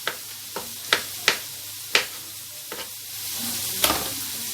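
A knife chopping vegetables on a cutting board: about seven sharp, uneven strokes. From about three seconds in, a steady hiss comes up under the last stroke.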